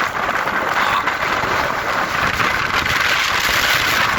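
Hurricane wind and rain: a steady, loud rushing noise.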